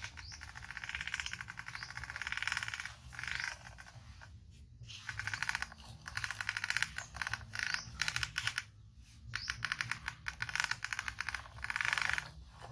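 Plastic toy truck rattling as it is pulled along, a fast clatter of clicks in stop-start bursts of about a second.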